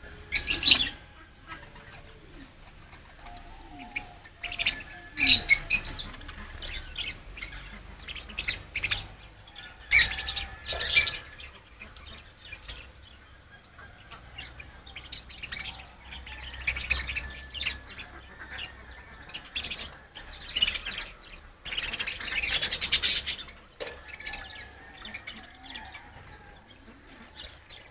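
Small aviary birds chirping in short, high bursts every few seconds, with a longer burst of chirping about three-quarters of the way through.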